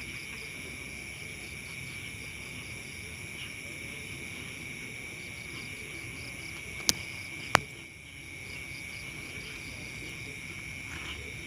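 Steady shrill chorus of insects such as crickets, with a fast pulsing trill among the high tones. About two-thirds of the way in come two sharp clicks half a second apart, the loudest sounds here.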